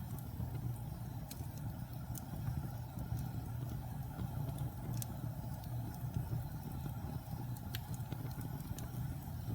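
Wood fire burning with a steady low rumble, with a sharp crackle or pop every second or two.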